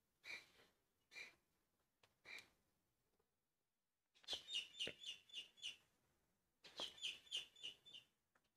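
Faint soft puffs of noise, then two quick runs of high chirps, about six a second, in the second half.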